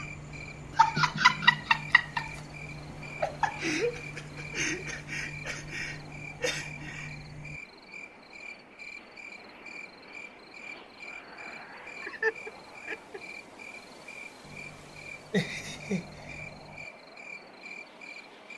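A man laughing hard in a quick run of loud peals about a second in, with lighter bursts over the next few seconds. Behind it, crickets chirp in an even, steady pulse.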